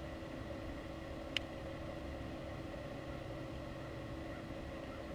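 Steady hum of a boat motor with a faint high whine over a low rumble, and one sharp click about a second and a half in.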